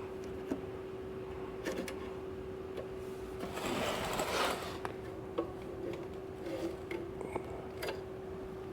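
Small clicks and knocks of hands working loose engine fuel-system parts, over a steady hum, with a brief hiss about three and a half seconds in.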